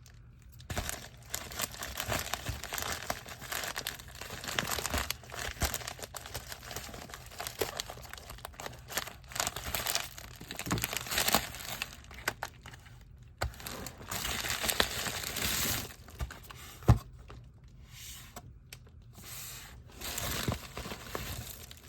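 Packaging being opened by hand: irregular crinkling and rustling of wrapping with tearing sounds and small clicks, and one sharp click about three quarters of the way through.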